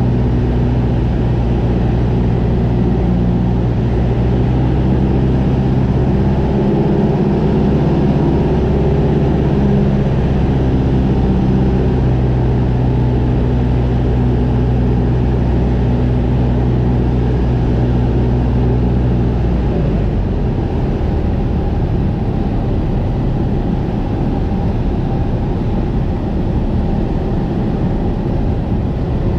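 Piston engine and propeller of a small single-engine plane, heard from inside the cockpit, running steadily on final approach. About two-thirds of the way in the steady engine note drops away, as power comes back to idle for the landing, leaving a rough rumble of wind and airframe noise.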